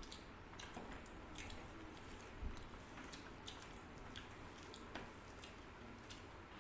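Faint wet clicks and squishes of eating rice and curry by hand: fingers mixing rice on steel plates and chewing, with scattered small ticks and one soft thump about two and a half seconds in.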